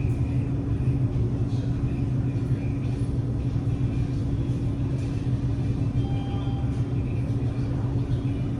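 Steady low rumble with a faint hum, typical of a running motor vehicle.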